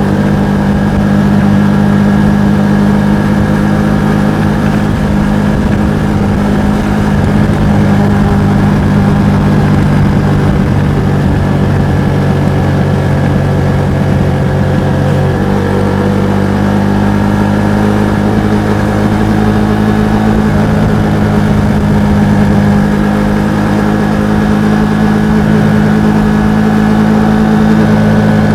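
Kawasaki Estrella's air-cooled single-cylinder engine running through its muffler at a steady engine speed, with the pitch shifting slightly about halfway through.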